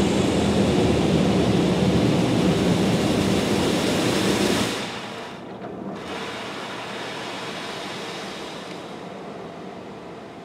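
Water spray from a Kärcher Opti Wash 8000 gantry car wash hitting the car, heard from inside the cabin as a steady loud hiss. It cuts off sharply about five seconds in, leaving a quieter steady noise.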